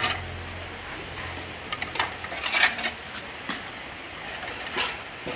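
A few scattered light clicks and knocks of metal power tools and parts being handled, over a low hum that fades out about a second in.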